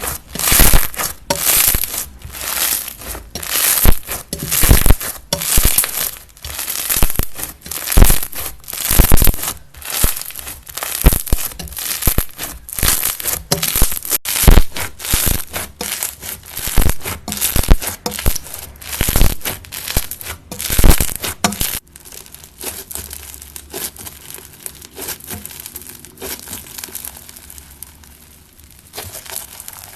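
Slime being squeezed and pressed by hand, crackling and popping in a string of loud bursts about once a second. About two-thirds of the way through it switches abruptly to quieter, finer crinkling.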